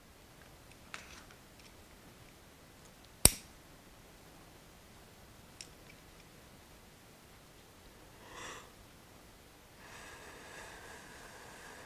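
Quiet room tone with a few small clicks and one loud, sharp click about three seconds in, then a short breath-like puff about eight seconds in.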